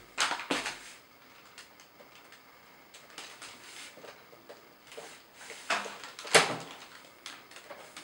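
An iiyama ProLite 27-inch monitor being turned by hand on its pivot stand from landscape to portrait: scattered knocks and clicks of the screen and stand, a few in the first half-second and the sharpest about six seconds in.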